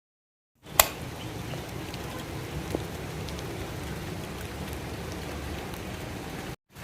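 Steady background noise with a low rumble, starting with a sharp click about a second in and cutting off suddenly near the end.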